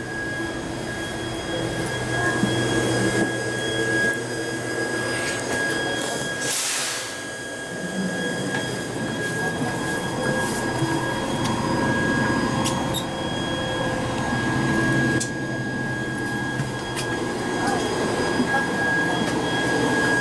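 Steady interior noise of a Toyama Chitetsu 10030 series electric train car: a continuous hum with several steady whining tones, and a brief hiss about six and a half seconds in.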